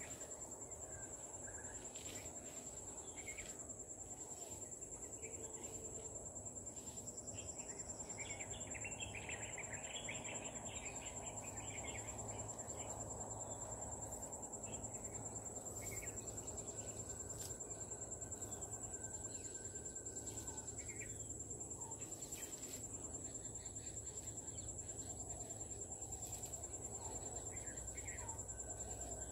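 Insects trilling in one steady, high-pitched unbroken note, with a few faint bird chirps and scattered clicks.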